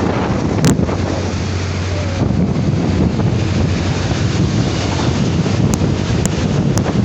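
Wind buffeting the microphone of a motorcycle riding at speed: a steady, loud roar with a low hum underneath and a few sharp clicks.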